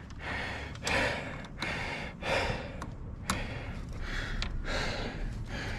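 A man breathing hard close to the microphone in repeated heavy breaths, winded from exertion. A few light clicks and rustles come from the solar panel cables being handled.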